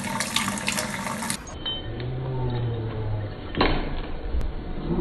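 A kitchen faucet runs in a steady stream, cut off abruptly about a second and a half in. A quieter stretch with a faint low tone follows, then a single loud thump about three and a half seconds in.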